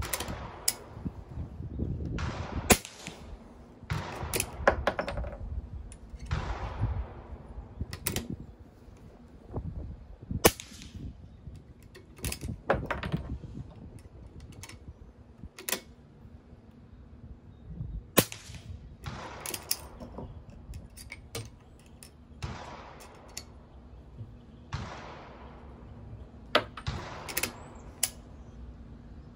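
Gunshots at an outdoor range, sharp cracks every few seconds at irregular spacing, several with echoes trailing off, along with the metal clicks of a single-shot falling-block rifle's lever action being opened, loaded and closed.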